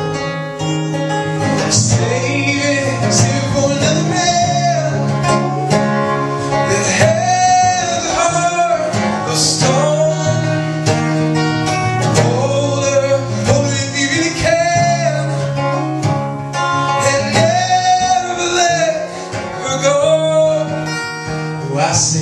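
A man singing with his own strummed acoustic guitar, live through a microphone. The sung lines are repeated phrases of long notes that arch up and fall away.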